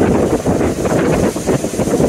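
Strong wind buffeting the microphone over storm waves from Lake Superior surging and breaking against the concrete pier wall and washing across the walkway.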